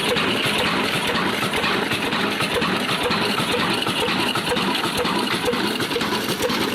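Old stationary diesel engine running steadily, with a regular beat of about two to three knocks a second.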